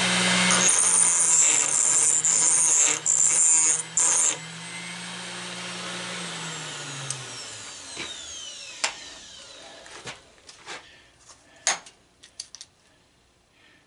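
Small 3-inch Harbor Freight variable-speed grinder running at high speed, grinding a spot on a metal regulator part to check what metal it is. The grinding comes in several loud bursts over the first four seconds or so, then the motor winds down with a falling whine. Light clicks and clinks of handling follow.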